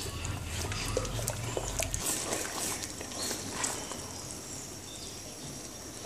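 Silicone spatula stirring a thin tomato sauce in a non-stick pot: soft scrapes and light clicks against the pot, over a low hum that stops about two seconds in.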